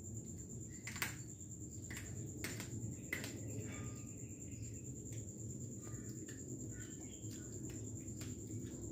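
A cat chewing a rat, with irregular sharp cracks and crunches, the loudest about a second in and again about three seconds in. A steady high insect trill, like crickets, runs underneath.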